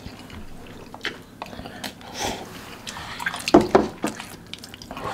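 Close-up wet eating sounds of a man slurping and chewing saucy spicy instant noodles (Samyang cheese buldak), with small wet mouth clicks. About three and a half seconds in come a couple of louder short mouth sounds as the chilli heat hits.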